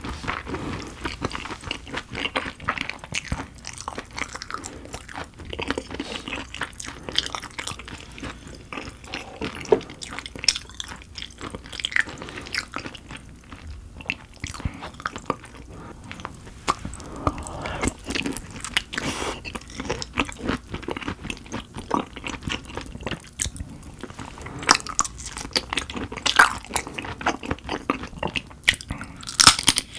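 Close-miked eating of raw dohwa shrimp: wet, sticky chewing broken by many sharp clicks and smacks.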